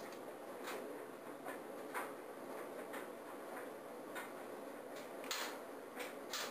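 Keys on a white Apple desktop keyboard pressed one at a time, a slow, irregular clicking about a second apart, as letters are typed out hunt-and-peck.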